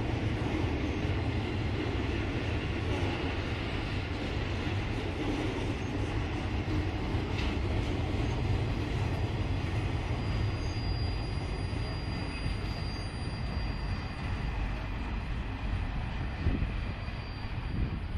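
Freight train cars rolling past on the track, flatcars loaded with rail and then boxcars, giving a steady rumble of wheels. A faint high wheel squeal comes in for a couple of seconds about halfway through.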